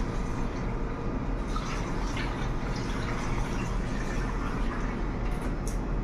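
Milk pouring from a large plastic jug into the hopper of a running gelato machine, over the machine's steady low hum.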